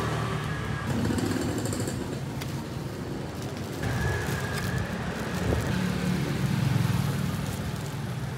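Street traffic: motor vehicle engines running and passing, the low hum swelling about a second in and again near the end.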